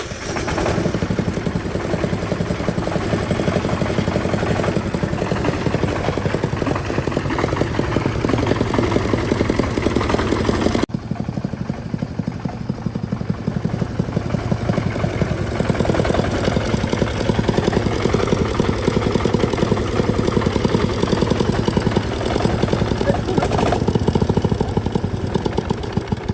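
Single-cylinder tractor engine running as the tractor is driven, a rapid, even firing beat with its stock short exhaust, the noise the owner calls ear-piercing.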